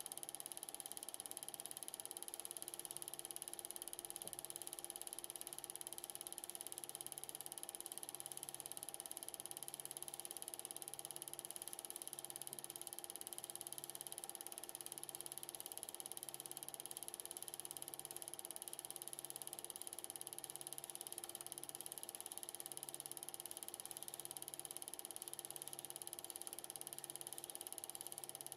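Faint, steady running of an 8mm film transport mechanism, with a soft low throb repeating about every 0.7 seconds under a constant high whine.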